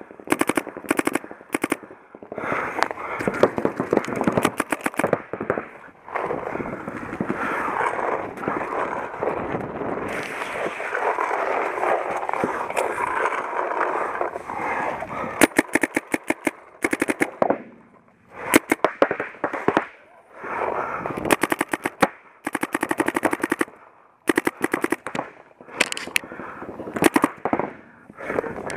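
Paintball markers firing fast strings of shots, burst after burst with short breaks, over a steady background noise.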